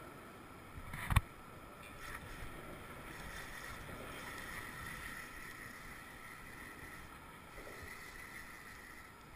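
Spinning fishing reel being handled: a sharp click about a second in and a softer one a second later, then a faint steady whir as the reel is wound in.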